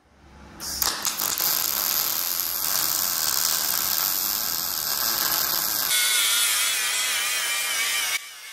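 MIG welding arc from an ARCCAPTAIN MIG205 Pro crackling and hissing steadily for about five seconds, then a cordless angle grinder with a grinding disc on square steel tubing, its whine wavering under load, until it stops shortly before the end.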